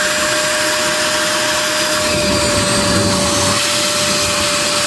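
Vacuum running steadily with a constant whine, sucking out a boat's keel bilge after it was scrubbed with dish soap.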